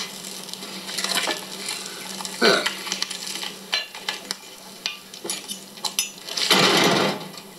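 A knife and utensils clinking and scraping on a serving platter as grilled crayfish are cut and plated, in scattered short clicks, with a louder, longer rush of noise about six and a half seconds in.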